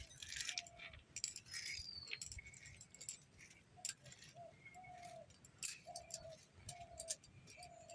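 Light clicks and taps of a knife cutting a raw papaya. Behind them, a bird repeats short low calls, and a higher chirp falls in pitch about two seconds in.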